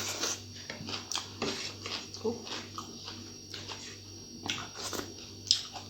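Close-up chewing and wet mouth clicks of a person eating rice and curry: irregular short smacks, over a steady low hum.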